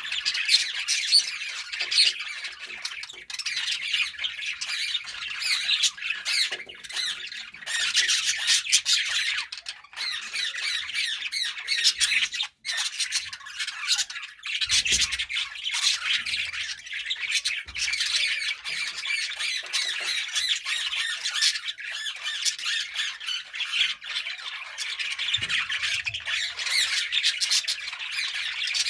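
Several budgerigars chirping and chattering nonstop, a dense overlapping stream of high-pitched calls.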